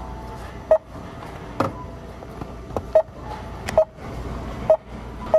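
Store checkout barcode scanner beeping as grocery items are scanned: about five short beeps, roughly a second apart, with a knock among them.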